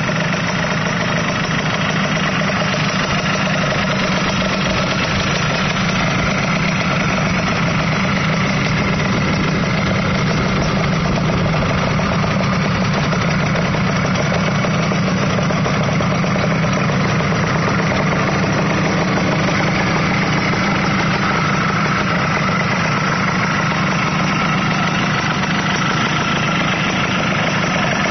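Yamaha YSR50 two-stroke single-cylinder engine, fitted to a small Yamaha bike, idling steadily with no revving.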